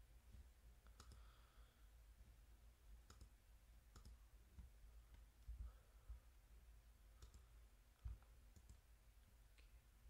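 Faint computer mouse clicks, about seven scattered single clicks at irregular intervals, with a couple of soft low thumps in the second half.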